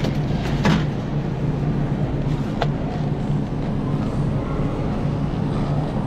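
Steady low hum of refrigerated produce display cases. Over it, plastic salad clamshell boxes being handled give three short clacks: one near the start, the loudest just under a second in, and one about two and a half seconds in.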